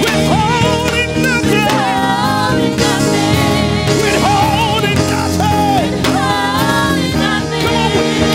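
Live gospel worship music: a voice singing gliding, wavering lines over sustained chords from the band.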